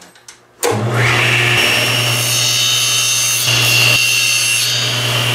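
Table saw running and trimming the end off a wooden drawer side: a loud steady motor hum with a high whine over the noise of the blade. It starts suddenly under a second in.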